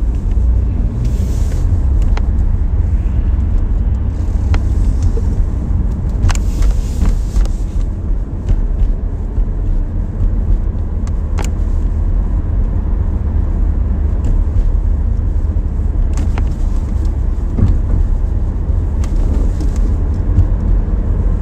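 A car driving at moderate speed along a street, heard from inside the cabin: a steady low rumble of engine and tyre noise. A few faint clicks and brief swells of hiss come and go.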